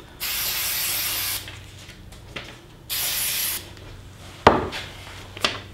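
Aerosol can of spray adhesive hissing in two bursts, one of about a second and then a shorter one, as adhesive is sprayed onto the back of a paper pattern. A thump follows near the end.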